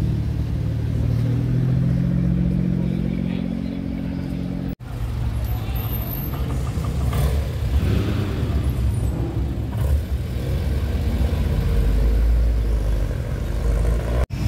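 A Toyota GR Supra's engine running with a steady low note that rises slightly. It breaks off abruptly and is followed by a classic Alfa Romeo Alfetta GTV's engine as the car pulls away, swelling to a deep low rumble near the end.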